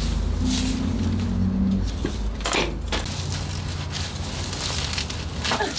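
Plastic leaf rake scraping and rustling through pulled weeds on paving, with two sharper scrapes about three seconds apart. A low rumble runs underneath for the first half.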